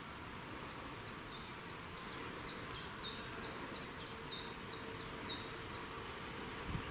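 A small bird singing: a quick series of over a dozen high, down-slurred notes, about three a second, over steady outdoor background noise.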